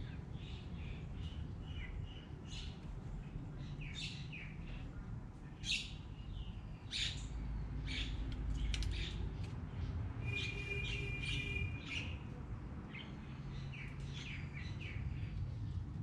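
Small birds chirping and calling, with short high chirps scattered throughout and a buzzy trill lasting about two seconds a little past the middle, over a steady low background hum.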